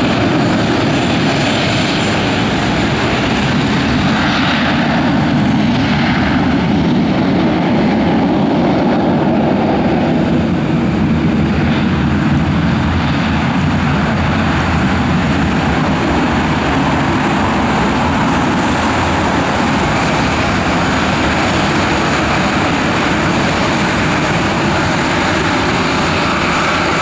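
Airbus A320 jet engines running at taxi power as the airliner rolls past: a loud, steady engine noise that holds its level throughout.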